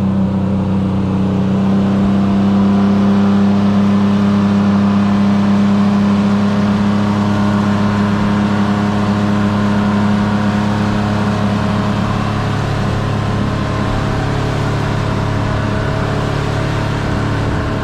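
Boat engine running steadily under way, its note shifting slightly about twelve seconds in.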